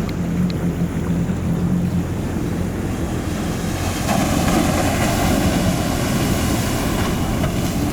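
Ocean surf and wind buffeting the microphone over a steady low engine hum. A louder rush of water comes in about halfway through and holds until near the end.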